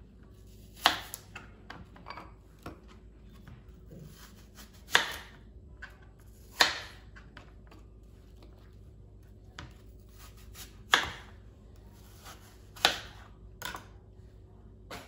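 Kitchen knife slicing through an apple and striking a cutting board: about six sharp knocks at uneven intervals, with fainter clicks and taps between them.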